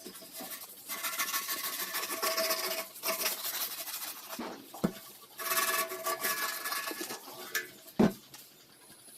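Hand abrading of a sheet-metal fuel tank: long rubbing passes, each a second or two, with a faint metallic ring under them. A sharp knock comes about five seconds in and a louder one near the end.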